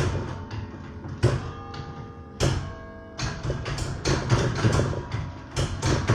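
Church tower bells played as a carol melody: struck notes that each ring on under the next, a few spaced strikes and then a quicker run of notes from about three seconds in.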